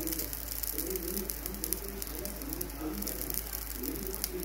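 Pigeons cooing over and over, with hot oil crackling in a frying pan.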